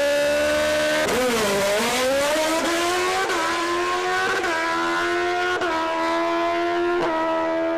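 Drag-racing motorcycle engine held at high revs on the start line, then launching: the note dips and swoops back up about a second in, then climbs through the gears, dropping sharply at each of about four quick upshifts.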